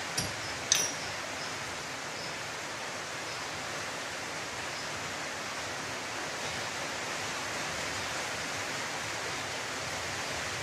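Steady hiss of rain as background noise, with two sharp clicks in the first second.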